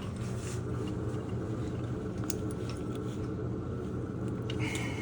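Steady low mechanical hum of running boiler-room equipment, with a few light ticks and clicks of hand tools on metal fittings.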